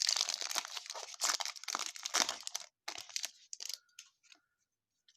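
Crinkly rustling of a pack of baseball cards being handled, dense for the first couple of seconds, then a few scattered clicks before it stops.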